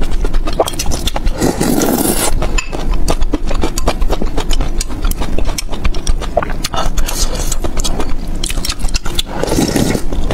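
Close-miked eating sounds from a bowl of spicy soup with tofu and noodles: steady wet chewing and mouth clicks, with two loud slurps from a metal ladle, one about a second and a half in and one near the end.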